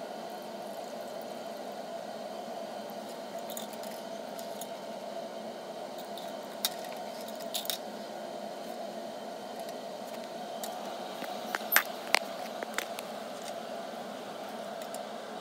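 Steady low hiss and hum of a quiet lab room, with a scattered few light clicks and taps from handling equipment, the sharpest pair about twelve seconds in.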